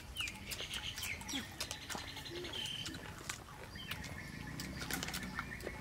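Crisp crunching and chewing of several people biting into slices of unripe green mango, with birds chirping in the background.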